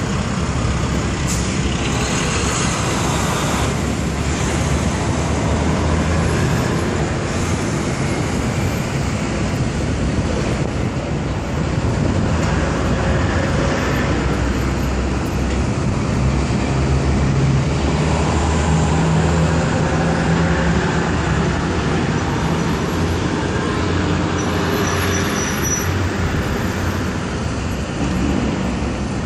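Steady road traffic noise, with the low hum of passing cars and trucks rising and falling in and out.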